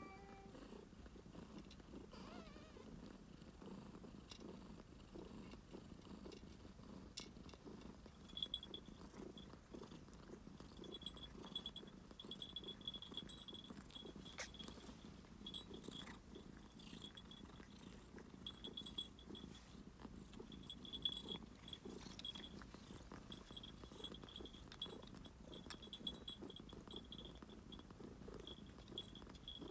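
Domestic cat purring steadily and faintly, with occasional small clicks. From about eight seconds in, a faint high-pitched tone keeps cutting in and out.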